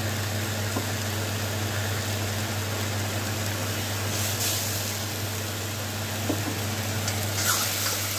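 Tomato, ginger and garlic masala paste frying in oil in an iron kadhai, a steady sizzling hiss under a low hum. A steel ladle scrapes the pan briefly about four seconds in and again near the end.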